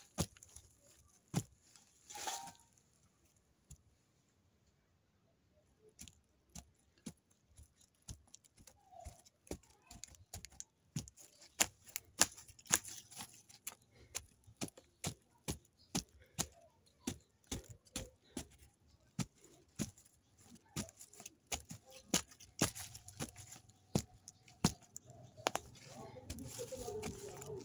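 A stick jabbing and scraping into loose soil to dig out around a plant's roots: a run of sharp, irregular scrapes and knocks, about two or three a second, starting a few seconds in.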